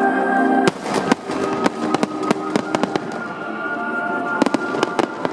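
Aerial fireworks bursting, with a loud bang just under a second in and another cluster of bangs near the end, over continuous crackling, while music plays over loudspeakers.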